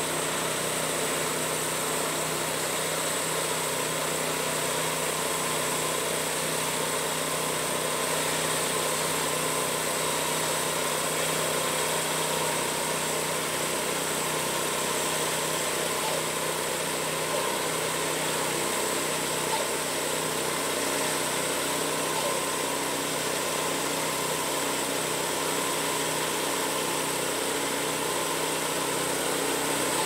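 The small gas engine of a portable band sawmill running steadily at an even speed as the mill cuts slowly along a log.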